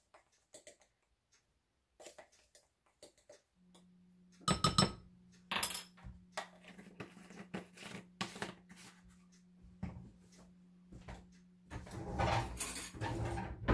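Kitchen clatter: a measuring spoon clinking and scraping in a seasoning jar, and the jar and spoon set down on a wooden counter. A steady low hum comes in a few seconds in.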